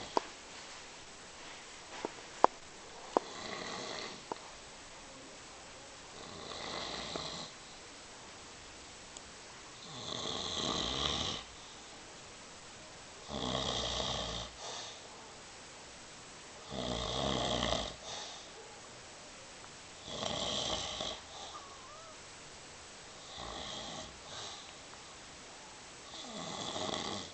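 An elderly man snoring loudly in his sleep, one long snore about every three and a half seconds, eight in all, the middle ones the deepest. A few sharp clicks come in the first few seconds.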